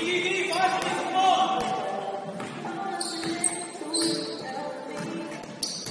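A basketball bouncing on the court in repeated sharp knocks, over several people talking at once during a game.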